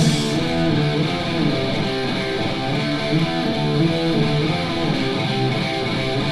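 Heavy metal recording: an electric guitar passage with the drums dropped out, the guitar's notes ringing over each other.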